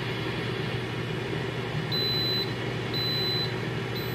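Instant Pot air fryer lid running, its fan making a steady whir. About two seconds in, three high electronic beeps sound, each about half a second long and about a second apart.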